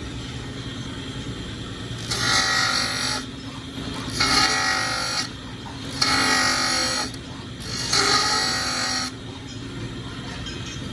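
Steel delivery forceps pressed against a running grinding wheel four times, each pass about a second long, to grind their teeth, over the steady hum of the grinder motor.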